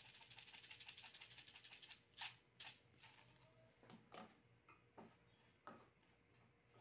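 Black pepper grinder being turned over a bowl, a fast, even, fine rattle for about two seconds, then a few scattered light clicks and taps.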